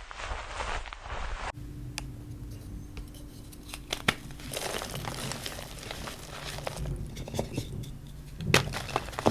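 Reformed gym chalk crushed and crumbled by hand: dry crunching and crumbling with sharp snaps, the loudest snap near the end.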